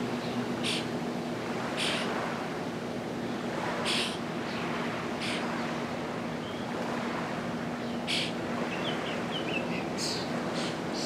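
Wild birds giving short, sharp calls every second or two, with a brief twittering run about nine seconds in, over a steady low hum and a soft outdoor hiss of wind and water.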